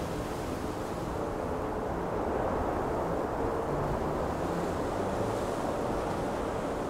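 Steady rushing of wind and sea with a deep, continuous rumble underneath, the ambience of an ocean liner at sea.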